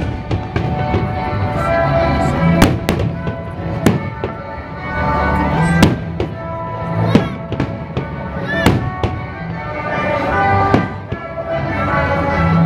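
Aerial firework shells bursting overhead: a dozen or so sharp bangs at irregular intervals, with music playing loudly alongside.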